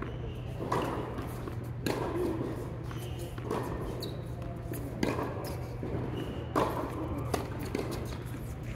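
Tennis balls struck by rackets and bouncing on an indoor hard court: several sharp hits at irregular intervals, echoing in a large hall, over a steady low hum.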